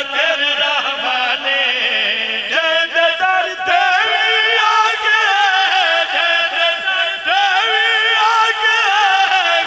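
Men chanting a devotional verse together into microphones over a loudspeaker system, in high-pitched held and wavering notes. A new, higher phrase starts about two and a half seconds in.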